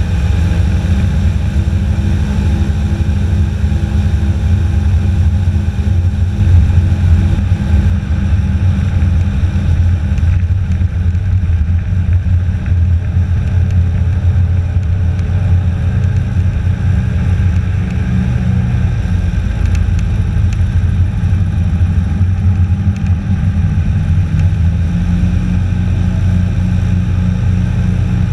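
Airboat's engine and air propeller running loudly and steadily as the boat travels across the marsh.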